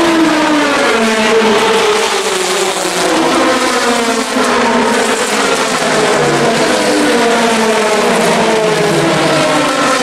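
A pack of Le Mans prototype race cars running at speed, many engines overlapping at once, their pitch repeatedly falling and rising as cars come through the corners.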